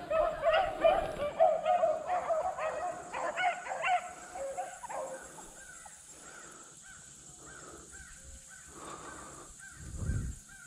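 A pack of rabbit hounds baying as they run a rabbit's scent trail, several overlapping drawn-out cries in the first few seconds, then fainter short calls.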